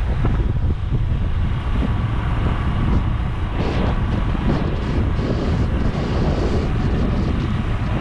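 Strong wind buffeting the microphone: a loud, steady, gusting rumble with no break.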